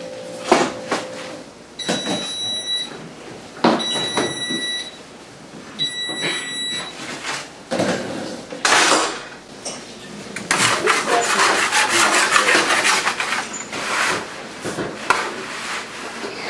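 An electric range's electronic control beeps three times, each beep about a second long and the beeps about two seconds apart. It is followed by clattering and scraping as a metal cookie sheet is handled at the open oven.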